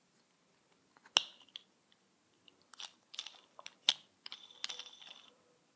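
Plastic Lego pieces clicking and snapping together in the hands: a sharp click about a second in, then a run of uneven clicks and rattles, the loudest near the four-second mark.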